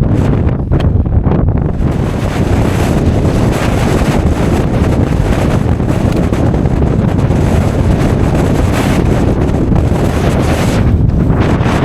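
Strong storm wind buffeting the microphone: a loud, steady low rumble, with a brighter gusting hiss over most of the stretch.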